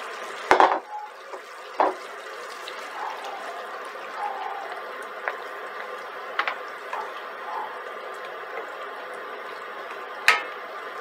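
Tomato curry sauce bubbling in a stainless steel pan as a wooden spoon stirs in chopped tomatoes and peppers. The spoon knocks sharply against the pan a few times, loudest just under a second in and again near the end.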